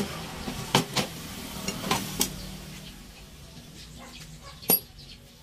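Hammer tapping a punch or screwdriver against a motorcycle monoshock clamped in a steel bench vise: about five sharp metal strikes in the first two seconds or so, then one ringing metal clink near the end.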